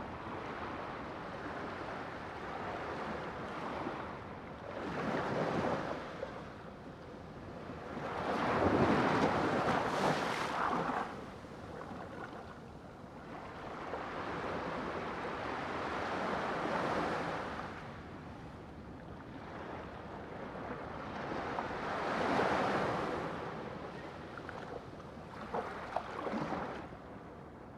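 Ocean waves surging and washing back, rising and falling in about five swells a few seconds apart, the loudest about a third of the way in.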